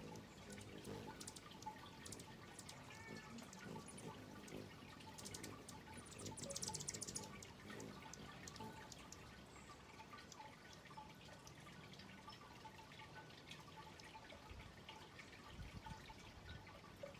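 Faint backyard ambience with scattered soft ticks and small chirps, and a brief, high, rapid chatter about six seconds in.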